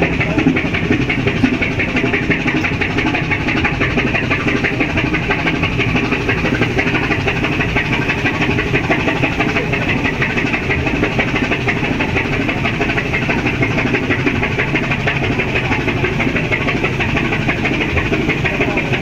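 Cargo ship's diesel engine running steadily under load, with a fast even clatter, as the ship manoeuvres off the pier.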